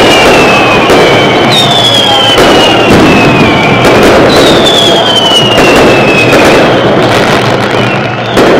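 Fireworks going off overhead in a dense, loud barrage of crackling and bangs. Two long whistles fall in pitch, about a second and a half and four and a half seconds in.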